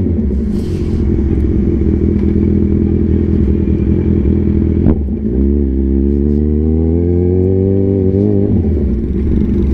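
Kawasaki Z1000's inline-four engine running as the motorcycle rolls through a turn, then a sharp click about five seconds in and the engine accelerating, its pitch rising for a few seconds before easing off near the end.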